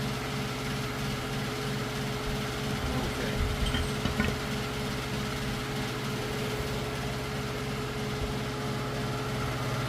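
Steady machine hum with a low drone and a higher steady tone, and a few faint clicks and knocks about three to four seconds in.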